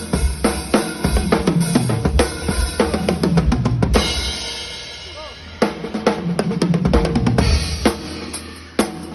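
Drum kit played in a fast groove with bass drum, snare and tom fills. About four seconds in a cymbal crash rings out with few strikes, and the beat resumes about a second and a half later.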